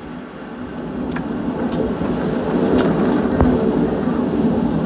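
Severe storm wind gusting through trees with heavy rain: a steady rush that swells over the first few seconds, with scattered sharp ticks of drops or debris striking close by.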